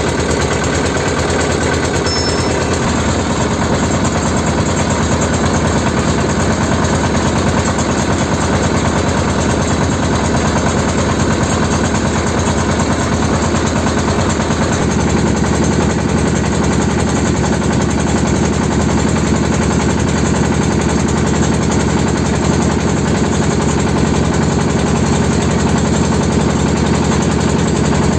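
Inboard engine of a small wooden pompong riverboat running steadily with a rapid, even knocking beat. The low part of the sound grows stronger about halfway through.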